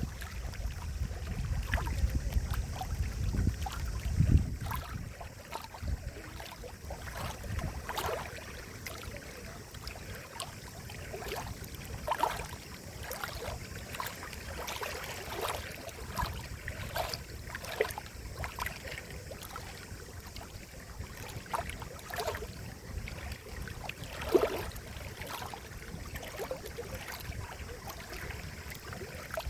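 Gently moving water making irregular small gurgles and plops, with a low rumble in the first few seconds and one louder plop near the end.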